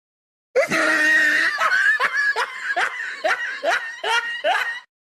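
A high-pitched laugh starting about half a second in: a run of quick rising 'hee-hee' pulses, about two or three a second, over a held pitch, stopping shortly before the end.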